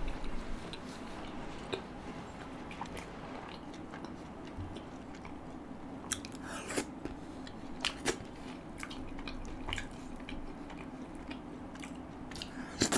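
Close-miked chewing and wet mouth sounds of a person eating naan dipped in curry, with scattered soft smacks and clicks, over a steady low hum.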